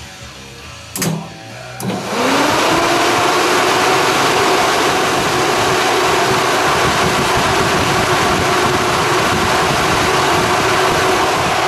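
Two electric radiator cooling fans switched on after a couple of knocks, spinning up with a rising whine that levels off into a loud steady whir and rush of air, about two seconds in.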